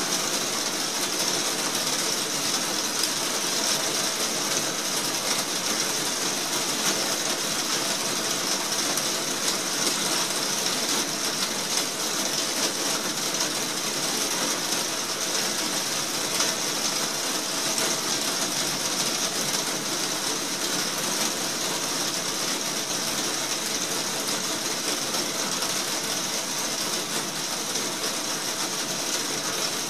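Heavy rain falling on the roof overhead: a steady, dense patter of countless drops with no let-up.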